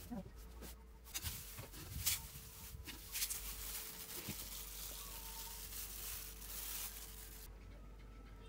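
Plastic-gloved hands crumbling crisp crackers and scattering them over a plate of salad: irregular crackles and rustles, thickest in the first three or four seconds.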